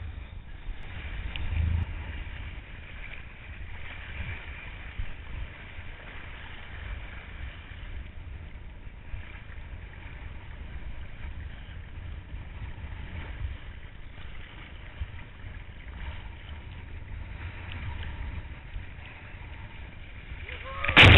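Wind buffeting a head-mounted camera's microphone over choppy seawater, with water sloshing around a kitesurfer floating in the sea. A sudden loud burst, likely a splash against the camera, comes right at the end.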